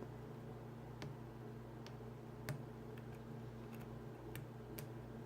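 Faint, irregular clicks of a lock pick working the pins of an American Lock Series 2000 puck lock, with one sharper click about two and a half seconds in, over a steady low hum.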